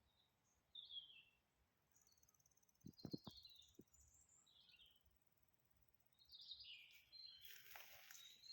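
Quiet woodland with a few faint, short high chirps of small birds, a cluster of soft knocks about three seconds in, and rustling near the end.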